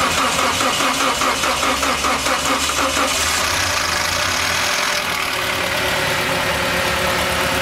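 Toyota Hiace's 2.7-litre petrol four-cylinder turning over for about three seconds, then catching and settling into a steady idle. It is the engine's first start after a new head gasket and a reconditioned head.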